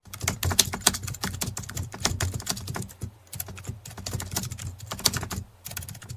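Rapid keyboard typing, an irregular run of sharp keystroke clicks, used as a sound effect for on-screen text being typed out. It pauses briefly about three seconds in and again near the end.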